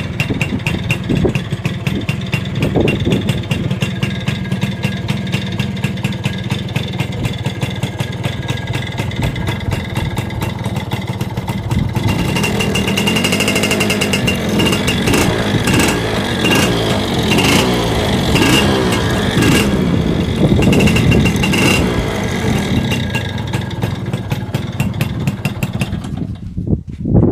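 Yamaha 80cc two-stroke motorcycle engine idling, then revved up and down repeatedly with the throttle from about halfway through.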